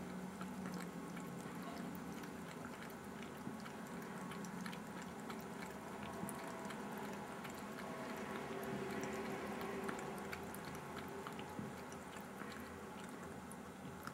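Norwegian Forest cat lapping from a thin stream of tap water running into a ceramic sink: many quick little wet clicks of the tongue over the steady trickle of the water.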